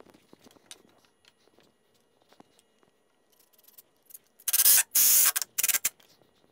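Cordless impact driver driving a screw into wood in three short bursts about four and a half seconds in, after faint clicks of handling the wood and tool.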